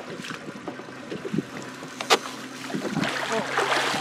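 Water splashing as a fish is scooped into a landing net alongside a boat and the net is lifted. The splashing swells over the last second, with a single sharp knock about two seconds in.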